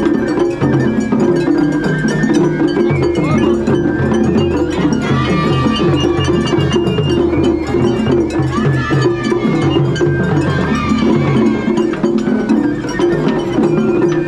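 Japanese festival hayashi music played without a break: taiko drums beating a dense rhythm, a small hand gong clanking, and a high bamboo flute melody that bends in pitch.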